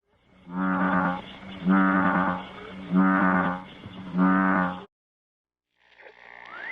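Bullfrog croaking four times: low, drawn-out calls about half a second each, evenly spaced a little over a second apart. After a short silence, a fainter sound with a rising pitch starts near the end.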